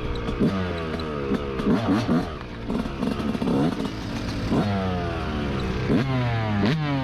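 Yamaha YZ125 single-cylinder two-stroke dirt bike engine being ridden off-road, revving up in a series of short, sharp throttle bursts about six times, the pitch falling back between each as the throttle is rolled off.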